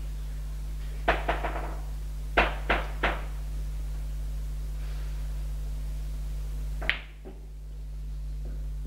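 Hard billiard-table bocce balls knocking on the table: a quick cluster of three sharp clacks, three more about a second later, then a single clack near the end. This is a thrown bocciata whose ball misses its target.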